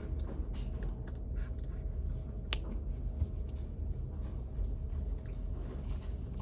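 Study room ambience: a steady low hum of ventilation with scattered light clicks and taps, and one sharper click about two and a half seconds in.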